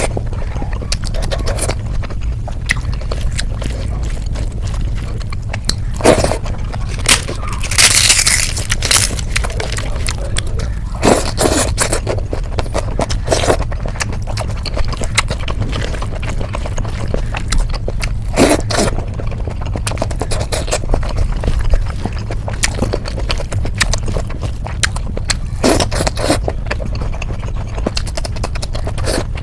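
Eating sounds: a utensil or fingers scraping and knocking against a plate in scattered strokes, over a steady low hum.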